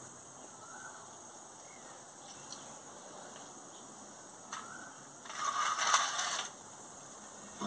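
Insects chirring steadily at a high pitch in the background. About five seconds in, a loud rustling scrape lasts just over a second.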